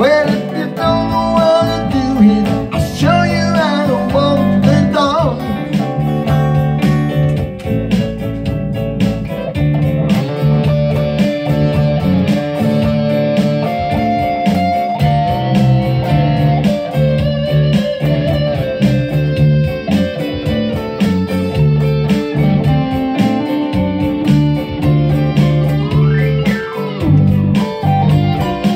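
Electric guitar playing a blues part with a steady repeating low line under higher picked notes, and a few bent notes near the start and again near the end.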